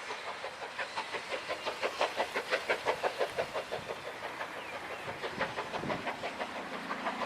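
A heritage train passing with a rapid, regular clatter of about five beats a second, loudest a few seconds in and then fading as it moves away.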